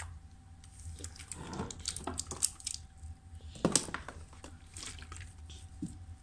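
Wet squishing and irregular clicks as a green plastic spoon scrapes and mashes the juicy flesh of a half watermelon, with a toddler's eating sounds. The sounds are busiest between about one and two and a half seconds in, and the sharpest click comes a little later.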